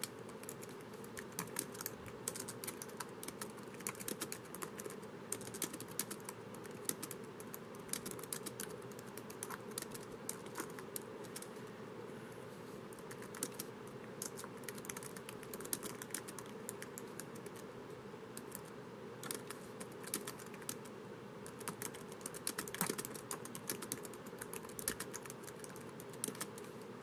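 Typing on a laptop keyboard: a steady, irregular patter of soft key clicks, with a few louder taps here and there.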